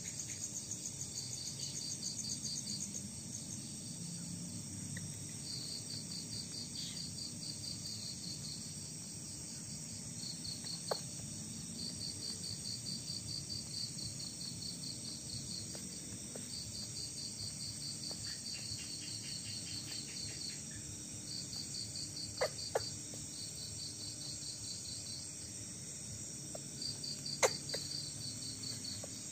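Crickets chirping in repeated high pulsed trills, each a second or two long, over a steady high insect hum. A few sharp clicks stand out, the loudest near the end.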